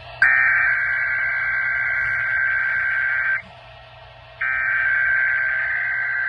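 Emergency Alert System SAME header: digital data tones blaring in two long bursts, each about three seconds, with about a second's gap between them. They mark the start of a Required Weekly Test alert.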